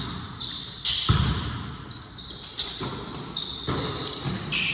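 Basketball bouncing on a court floor in an uneven dribble, with sneakers squeaking sharply as players move.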